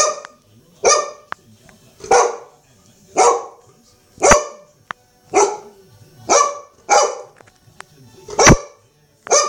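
Golden retriever barking at a mouse, about once a second, nine loud barks in a row.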